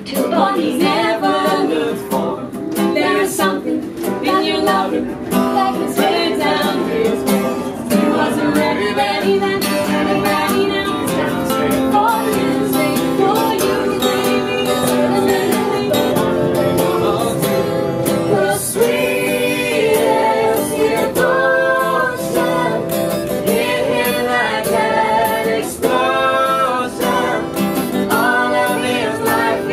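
Acoustic guitar strummed live with voices singing a song, the sung melody standing out more strongly in the second half.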